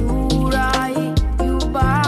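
Background music: a song with a strong, deep bass line and a beat of regular percussive hits under a sustained melody.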